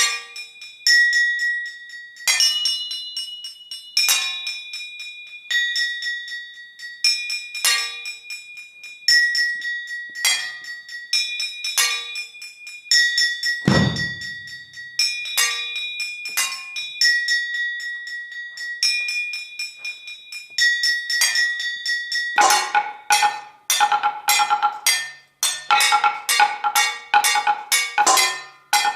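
Solo percussion on struck metal objects: ringing metallic strikes about every second and a half, each leaving a high ring, with a single deep thud about halfway through. Near the end the strikes turn rapid and dense.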